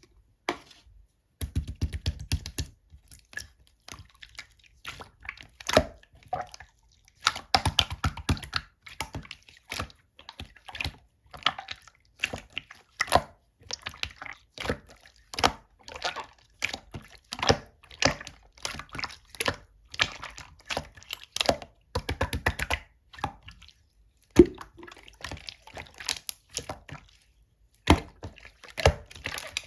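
Clear slime being worked by hand: irregular wet clicks and pops as it is pressed, folded and stretched, with a few denser clusters of squishing.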